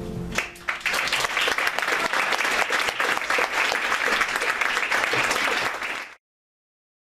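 Audience applauding with dense, steady clapping that starts about half a second in as the band's last held chord dies away, then cuts off abruptly about six seconds in.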